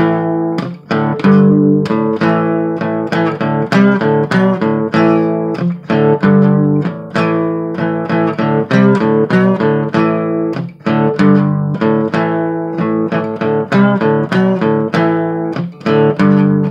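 Instrumental music: an acoustic guitar strummed and picked in quick, even strokes, with no singing.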